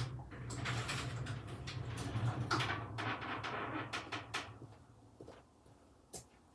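Hoover H-Wash 300 washing machine turning its drum: a motor hum with laundry and water swishing in the drum, dying away about four seconds in. A few light clicks follow.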